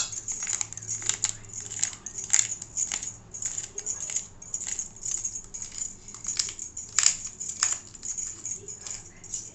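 Irregular light clicks and clinks of a small glass spice jar against a steel mixing bowl as crushed black pepper is shaken in, with a few sharper knocks.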